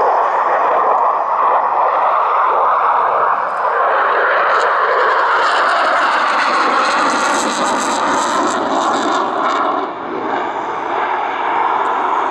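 Twin RD-33MK turbofan engines of a MiG-29M2 fighter jet, a loud steady jet roar as the aircraft manoeuvres overhead. A harsh crackle comes in from about five to nine seconds in, and the roar dips briefly near the ten-second mark.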